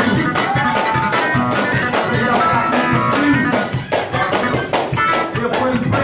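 Up-tempo church praise music with a tambourine shaken and struck on a fast, steady beat over other instruments.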